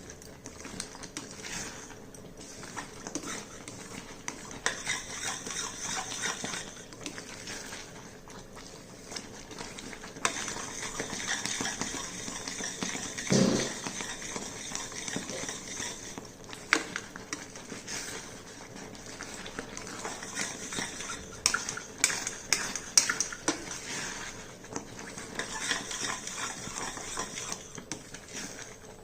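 A utensil stirring and scraping a thick, drying banana-and-jaggery barfi mixture around a kadhai, with irregular scrapes and clinks against the pan. A single short animal call, like a dog's bark, sounds about halfway through.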